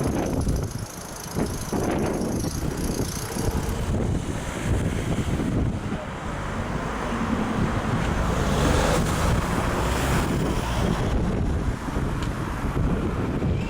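Vehicles passing over a level crossing, a continuous rushing noise with wind buffeting the microphone.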